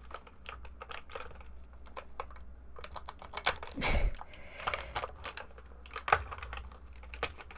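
Small packaging being handled and opened by hand: an advent calendar door and its wrapping. It makes a run of quick, irregular clicks, taps and rustles, with a couple of louder crinkles about four and six seconds in.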